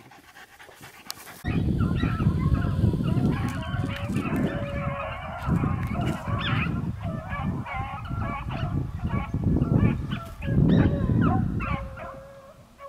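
A pack of beagles baying and bawling on a rabbit's track, many overlapping voices, over a low rumble. It starts suddenly about a second and a half in and fades near the end.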